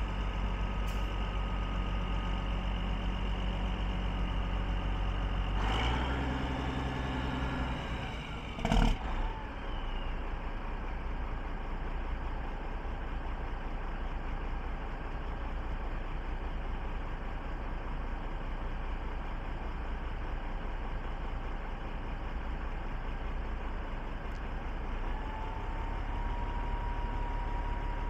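Kenworth T600 truck's diesel engine idling steadily while its raised dump box is lowered. About nine seconds in, one short, sharp burst stands out as the loudest sound.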